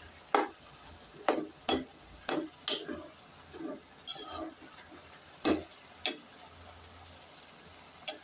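Steel spoon stirring shredded cabbage and potato in a metal kadai: irregular scrapes and clinks of the spoon against the pan, roughly ten strokes, stopping about six seconds in.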